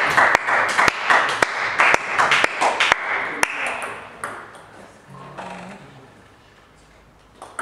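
Table tennis ball clicking in a quick run of sharp bounces and taps for about three seconds, over a hum of hall noise. It is then quieter, with a single ball click near the end.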